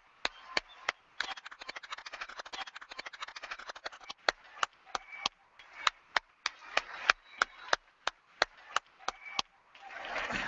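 Sharp hand claps from one person close to the microphone, about three a second, over a denser patter of applause from a large audience.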